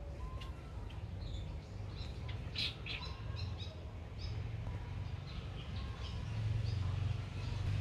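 Birds chirping: scattered short, high chirps, busiest a few seconds in, over a steady low rumble that grows louder near the end.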